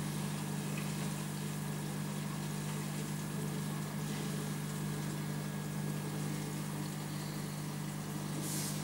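Steady electric hum of an aquarium pump running, with an even watery hiss under it and a brief louder hiss near the end.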